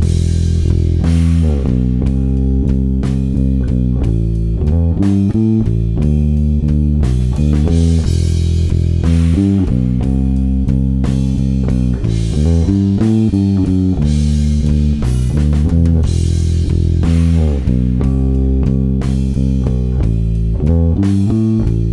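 Electric bass guitar and drum kit playing a rock groove together: a moving bass line over steady drumming, with cymbal crashes every few seconds.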